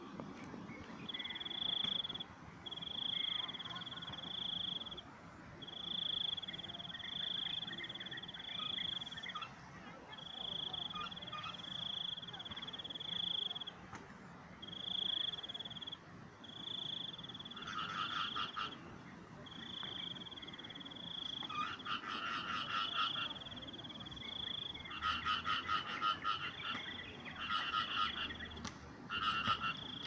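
Frogs calling: a high, steady trill repeated in bursts of one to three seconds with short gaps. From a little past halfway, a second, rapidly pulsed call joins in short repeated bursts.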